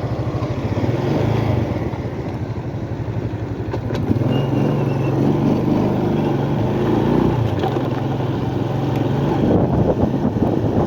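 Motorcycle engine running with a steady, even beat of firing pulses, getting a little louder about four seconds in. The owner wonders whether this is a strange engine noise that points to some problem, but can't say.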